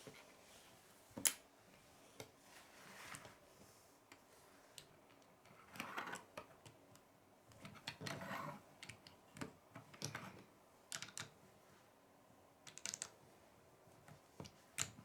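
Lego bricks being handled and snapped together: faint, scattered plastic clicks and rattles, with one sharper click about a second in and a couple of short rustling stretches in the middle.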